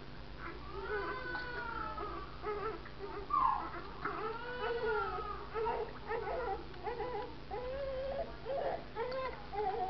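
Newborn baby crying: two drawn-out wails, the first about a second in and the second around four seconds in, followed by shorter broken whimpers.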